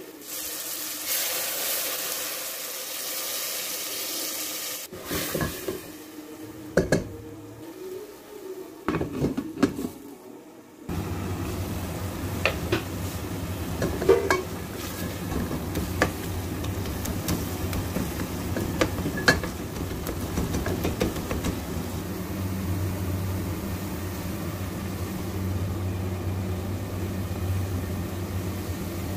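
Masala in a hot metal pot sizzles as water is added. This is followed by a spoon scraping and clinking against the pot as it is stirred, with a steady low hum beneath from about eleven seconds in.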